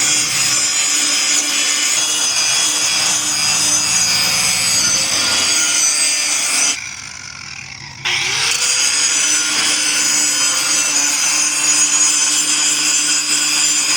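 Electric grinder sharpening a lawn mower blade: steady high grinding of the wheel against steel over the motor's hum. It stops about seven seconds in and starts again a second later for a second pass, worked a little at a time so the blade edge doesn't get too hot and lose its temper.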